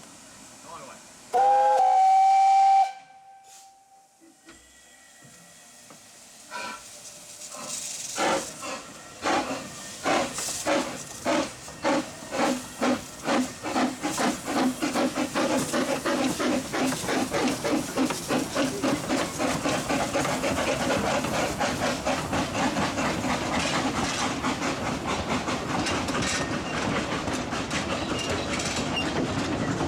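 A steam locomotive whistle sounds one loud blast lasting about a second and a half, scooping briefly up to a steady note. Then a double-headed narrow-gauge train hauled by two Corris Railway Falcon saddle tank locomotives, No. 10 and No. 3 Sir Haydn, starts away: slow separate exhaust beats begin about six seconds in, quicken steadily, and merge into fast continuous chuffing as the train gathers speed.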